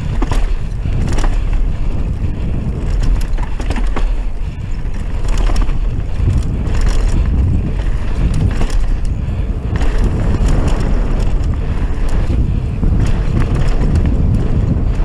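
Mountain bike descending a dry dirt trail at speed: wind buffeting the camera microphone over the rumble of knobby tyres on dirt, with frequent short rattles and clacks from the bike over bumps.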